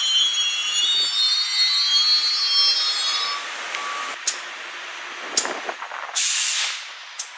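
Steel wheels of passing Amtrak Superliner passenger cars squealing against the rails in several high ringing tones at once, which stop about three seconds in. After that comes a steady hiss with short, sharp bursts of released air from the trains at the platform, the longest and loudest about six seconds in.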